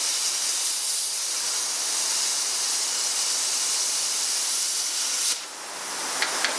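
Zeny Cut 50 plasma cutter cutting steel plate: a steady, loud hiss of the arc and compressed air. About five seconds in it cuts off abruptly to a quieter hiss, followed by two faint clicks near the end.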